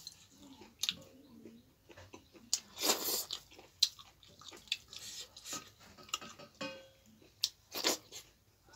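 Close-miked eating sounds: chewing of chicken gizzard and millet dhido, with wet mouth clicks and smacks. Two louder, longer wet bursts come about three seconds in and near the end.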